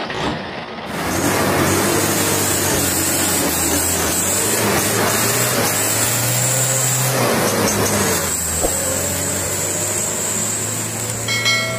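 Vehicle engine sound effect running as a loud, steady, noisy drone. About eleven seconds in, a bell chime rings as the subscribe button appears.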